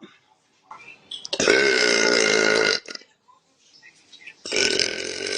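A young woman belching loudly: one long burp of about a second and a half, then a second long burp starting near the end.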